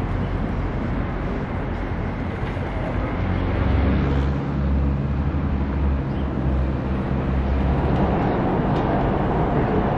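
City street traffic: cars running and passing, with a low, steady engine hum that gets stronger a few seconds in, as from a vehicle running close by.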